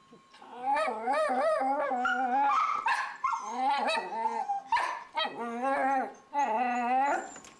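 A dog's drawn-out, wavering whining howls: several long calls one after another with short breaks, ending about seven seconds in.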